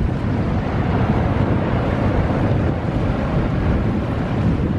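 Wind buffeting the camera's microphone: a steady low rumbling noise.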